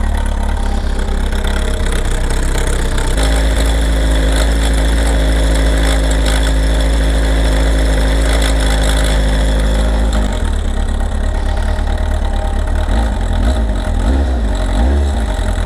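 Kawasaki ZR7S four-cylinder engine idling with an abnormal mechanical noise, which grows louder as the revs drop: the owner suspects the cam chain or its automatic tensioner. The engine note steadies and strengthens from about three seconds in, then falls back to a rougher idle at about ten seconds.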